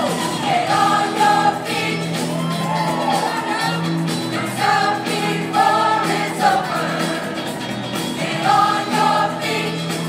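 A group of amateur voices singing together in unison over a backing accompaniment.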